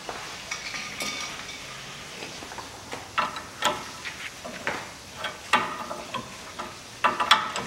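Wrench working on the steering tie-rod end's nut: irregular sharp metallic clicks and clanks with a short ring, in small clusters about three seconds in, once more loudly mid-way, and a quick run near the end.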